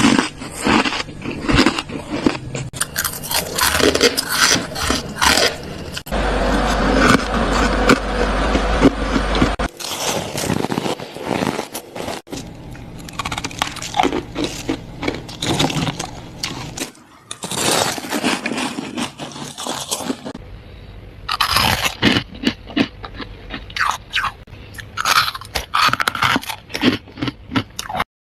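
Thick freezer frost being scraped and broken up, with dense crunching and crackling that changes character every few seconds as short clips follow one another.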